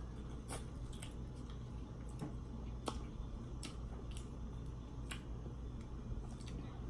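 Eating sounds of someone gnawing meat off a T-bone steak bone: irregular wet mouth clicks and smacks about a second apart, over a faint steady low hum.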